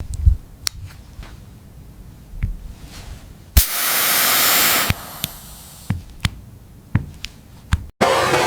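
Scattered sharp clicks and taps over a quiet background, with one burst of hiss lasting just over a second about three and a half seconds in.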